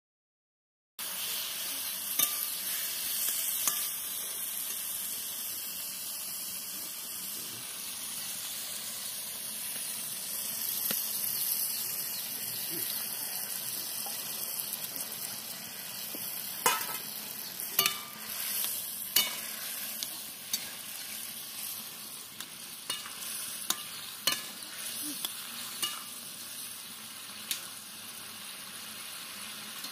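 Bottle gourd cubes sizzling in a steel wok, with a metal spatula stirring, scraping and knocking against the pan. The sizzle starts about a second in, and sharp knocks of the spatula come more often in the second half.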